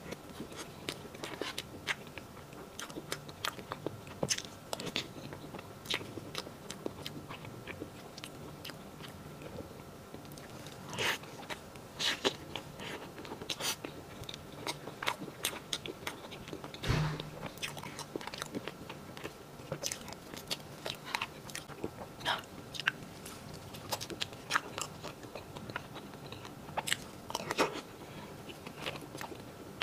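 Close-up mouth sounds of eating a light, soft cream sponge cake from a spoon: chewing with many small wet smacks and clicks, and one louder thump about 17 seconds in.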